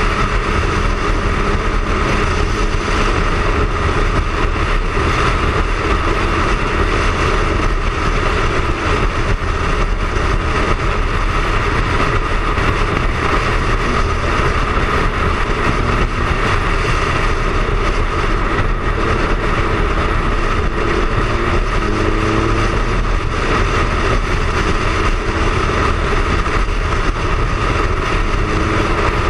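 Triumph Speed Triple's three-cylinder engine running at a steady cruise, mixed with wind and road noise over the onboard camera.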